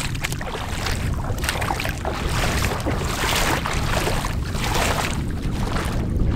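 Feet wading through shallow seawater, splashing with each step, over a heavy rumble of wind on the microphone.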